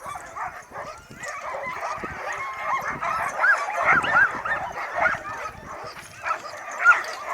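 A team of sled dogs yipping and barking in an excited chorus of many short, overlapping high calls.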